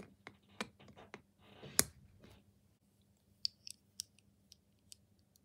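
Small plastic Snap Circuits parts clicking and tapping against the plastic base grid, with one sharp snap about two seconds in as a snap fastener presses home, then a few light ticks as the next pieces are handled.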